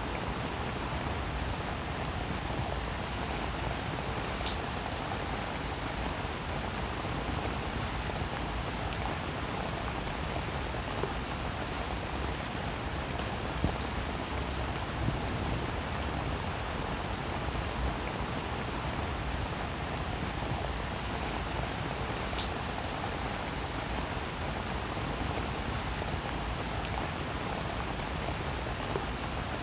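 Steady rain: an even, dense hiss with faint scattered ticks of drops.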